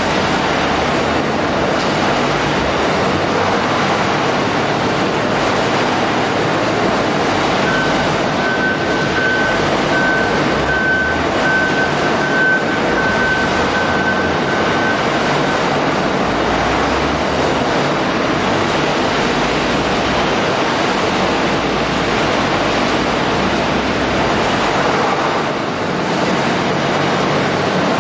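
Steady, loud machinery noise of a waste shredding and RDF processing line running, with a repeated high beep sounding for several seconds midway.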